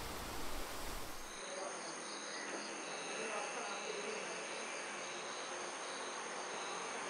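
An even rushing noise for about the first second and a half, then a steady, high-pitched insect chorus with a pulsing, chirping rhythm.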